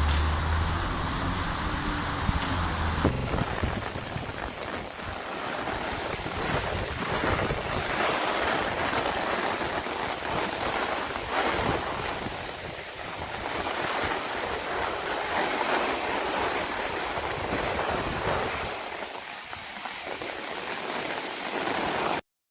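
A low steady hum for about three seconds, then a cut to storm noise: wind buffeting the microphone over a steady rushing wash of heavy rain and water.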